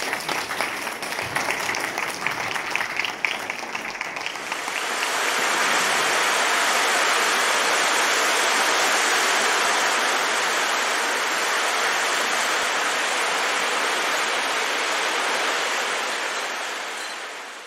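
An audience applauding for about four seconds, then a steady rush of surf from breaking waves that fades out at the end.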